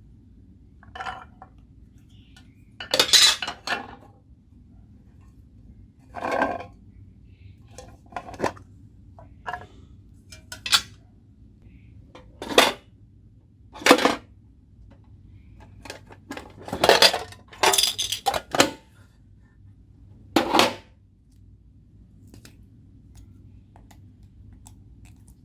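Hard clinks and clacks of containers and utensils being handled while ingredients are mixed into homemade slime: about a dozen short knocks at irregular intervals, some in quick clusters.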